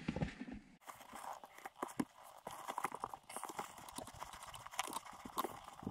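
Hands working a shift boot up over the base of a manual gear shifter: soft, irregular clicks and taps of the boot and shifter being handled.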